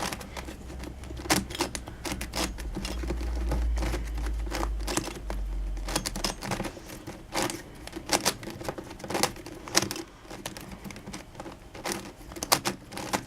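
Irregular plastic clicks and clacks of a DaYan Megaminx puzzle's faces being turned by hand, with a low rumble during roughly the first six seconds.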